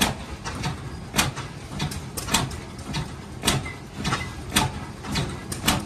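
Large antique stationary gas engine running slowly, its flywheel turning: a sharp exhaust beat roughly once a second, with lighter knocks between, over a low steady rumble.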